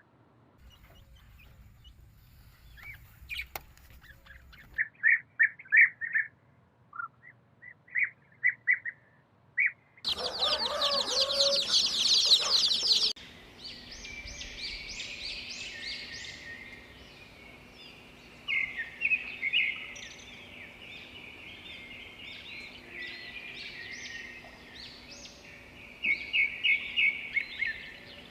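Small birds chirping in groups of short, repeated notes. About a third of the way in there are three seconds of loud, dense chattering, and after that the chirping and trilling goes on almost without a break.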